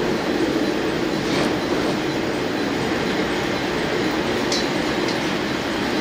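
Cabin sound of a KiHa 47 diesel railcar rolling slowly alongside a station platform: a steady rumble of engine and running gear. A few short high squeals come from the running gear, one about a second and a half in and two more near the end.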